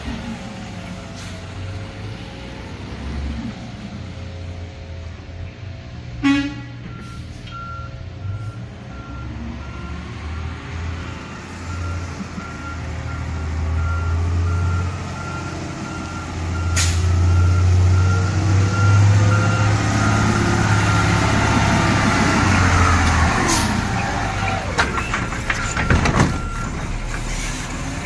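Garbage truck running with its reversing alarm beeping over and over, its engine revving up and settling a few times, with a few sharp clanks or hisses.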